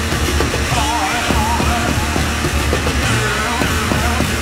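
Loud live noise-rock from a bass-and-drums duo: heavily distorted bass guitar under rapid, dense drumming, with a wavering, distorted yelled vocal over it.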